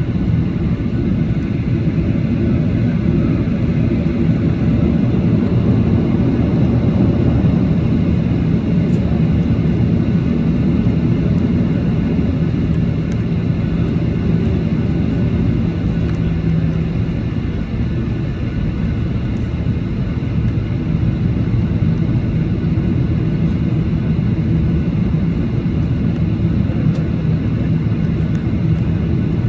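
Boeing 737-800's CFM56-7B jet engines running at a steady low rumble, with no spool-up.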